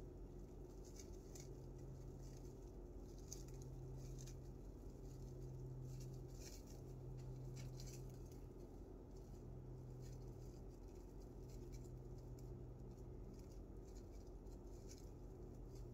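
Faint, scattered crinkles of plastic wrap and scrapes of a spoon as a sticky cashew-butter mixture is worked inside the wrap, over a low steady hum.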